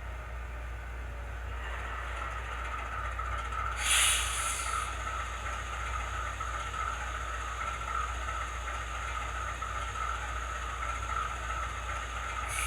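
Sound of a GE AC44C6M diesel locomotive, played through the small onboard speaker of an HO scale model's ESU LokSound decoder (sound project S0510): the prime mover idles steadily, with a loud air-release hiss about four seconds in.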